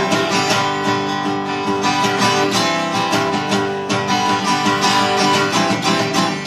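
Acoustic-electric guitar strummed solo, played live: the instrumental close of a song just after its last sung line.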